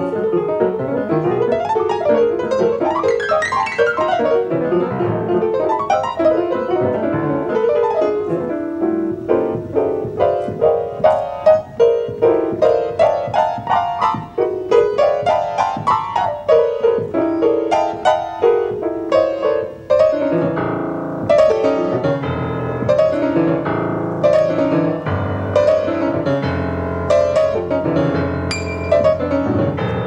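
Solo acoustic grand piano playing free jazz improvisation: dense, rapid runs of notes. About twenty seconds in it shifts to repeated, clustered chords lower in the register.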